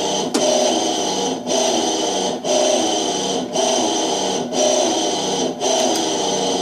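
Washing machine motor running its agitation cycle with the drive belt off, stopping and starting again about once a second, with a loud, horrible grinding noise: the technician blames it on the fallen belt and a worn motor bearing that needs replacing.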